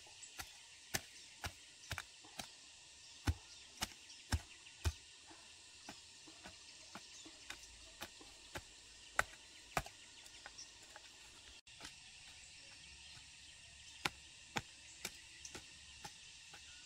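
A series of sharp knocks, roughly two a second and of uneven loudness, with a short lull about two-thirds of the way through, over a steady high-pitched hiss.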